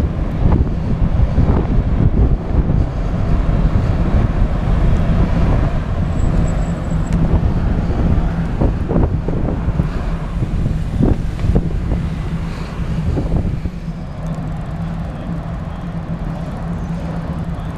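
Wind rushing over the microphone of a camera on a moving bicycle's handlebars, mixed with road noise and passing car traffic, with a few small knocks. It drops a little from about fourteen seconds in.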